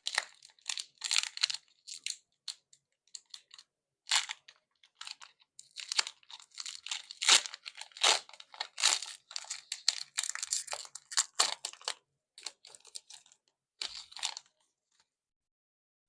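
Foil trading-card booster pack being torn open and crinkled by hand: an irregular string of rips and crinkles that stops near the end.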